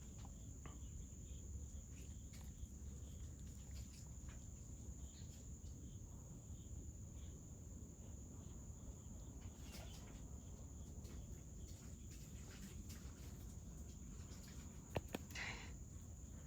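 Faint steady high-pitched trill of crickets over a low rumble, with scattered soft clicks and one sharp click near the end.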